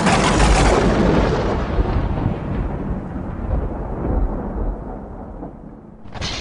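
Thunder-crash sound effect: a sudden loud crack that rolls into a deep rumble and slowly fades, then a second shorter burst near the end.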